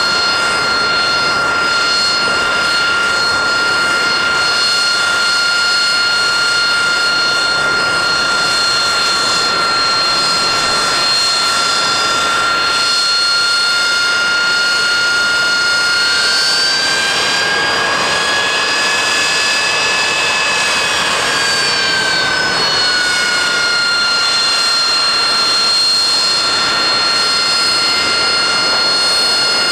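Rolls-Royce Pegasus turbofan of an AV-8B Harrier II Plus running with a steady high whine over a constant rush of jet noise. About halfway through, the whine rises in pitch for a few seconds, then settles back to its earlier pitch.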